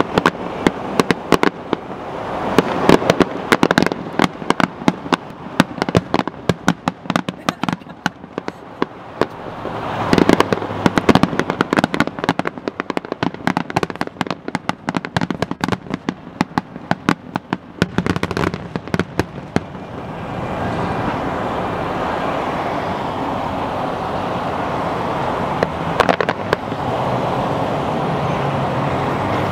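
Fireworks finale: a rapid barrage of sharp bangs and crackling bursts for about twenty seconds. Then the bangs thin out and a steady background noise takes over, with one or two last bangs near the end.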